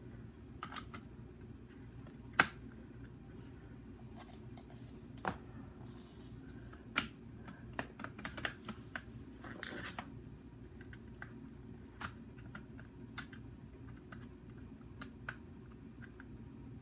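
Irregular clicks and taps of hard plastic blaster parts being handled and fitted together, the sharpest click about two seconds in.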